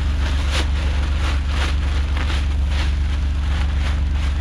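Utility vehicle engine idling steadily, with a few short rustling or scraping noises over it.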